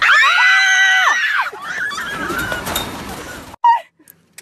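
A person screams once, a long, loud, high scream held steady and dropping in pitch as it ends. Rougher, noisier commotion follows and then cuts off suddenly.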